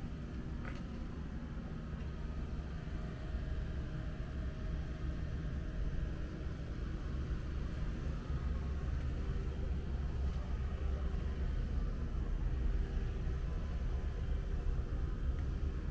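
Steady low rumble of town background noise with faint hums above it, growing gradually louder.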